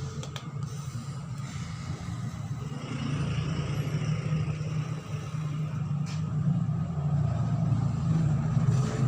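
Motorcycle engine running steadily with a low rumble, getting a little louder about a third of the way in and again near the end.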